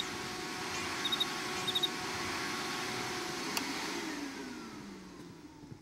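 Canister vacuum cleaner running with a steady hum, then switched off with a click about three and a half seconds in and winding down with a falling, fading hum. Three short, high cricket chirps sound over the running vacuum in the first two seconds.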